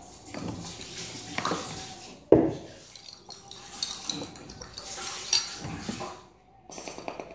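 Spoon clinking, tapping and scraping against a cup as the slime mixture is stirred, with a sharp knock about two seconds in.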